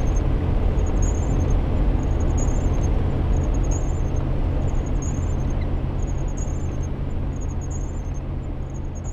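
Vehicle running at highway speed on a wet road, heard from inside the cab: steady low engine drone with tyre hiss from the wet pavement, and a faint high ticking repeating a little more often than once a second. The sound fades down toward the end.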